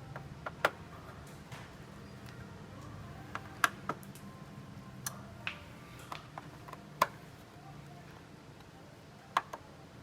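Irregular sharp clicks and light taps, about ten in all, of small hard parts and tools being handled during work inside an all-in-one PC, over a faint low hum.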